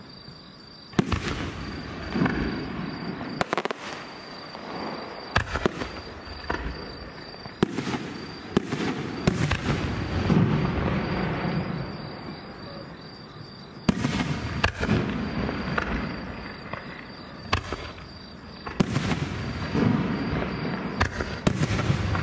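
Aerial firework shells bursting: about a dozen sharp booms, the first about a second in, each trailing off in a long rumbling echo. Insects chirp faintly underneath.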